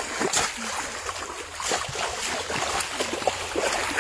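Shallow water splashing and sloshing continuously, with many small irregular splashes.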